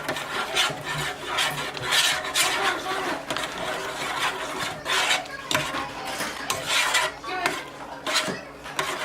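Irregular rasping, scraping strokes, roughly two a second.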